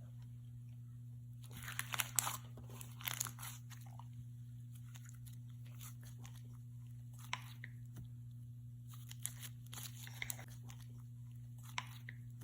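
Kiwi jello slime with jelly cubes being squished and pulled by hand, giving crunchy, crackling clicks in bursts, the loudest about two and three seconds in, then a few scattered ones.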